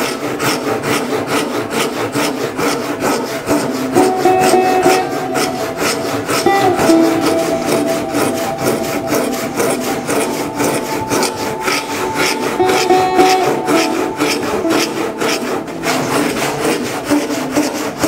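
Japanese hand saw cutting the face cheeks of an oak tenon, with steady back-and-forth strokes, about two to three a second. Soft plucked-string background music sits underneath.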